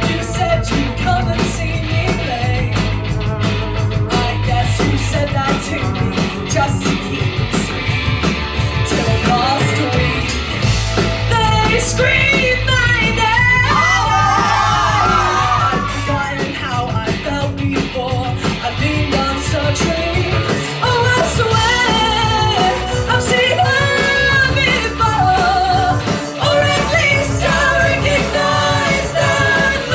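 Live pop-punk rock band playing, with sung vocals over electric guitar, bass and drums.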